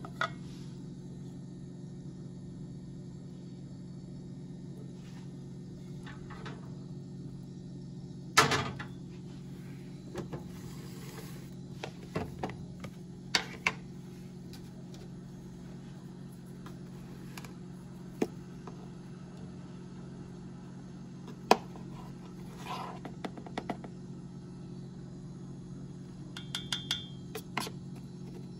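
Kitchenware being handled over a steady low hum: one loud knock about a third of the way in, a few sharp clicks later, and a quick run of light taps near the end.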